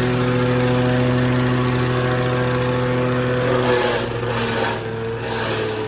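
Grass chopper machine running at speed with a steady machine hum; about two-thirds of the way through its pitch dips slightly and bursts of rushing, hissing noise come in, the sound of forage being fed in and shredded under load.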